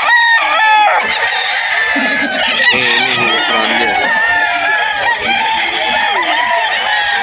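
Many gamecock roosters crowing at once, one call overlapping the next without a break.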